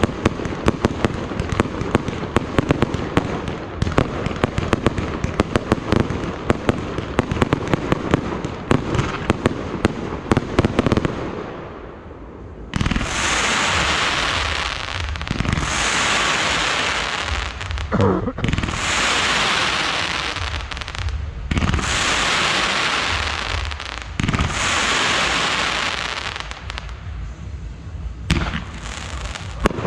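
Fireworks display: a dense rapid barrage of crackling bangs, then after a short lull a run of long hissing, crackling bursts, each lasting a second or two, with low thumps beneath.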